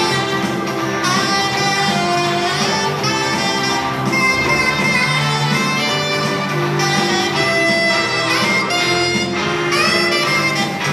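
Instrumental music with sustained melody lines and chords, and no singing.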